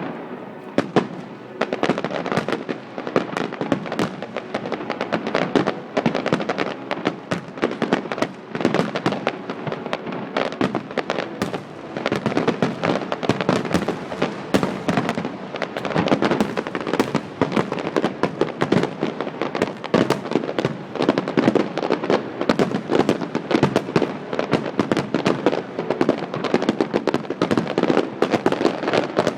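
Fireworks display: a dense, unbroken barrage of bangs and crackles, many per second.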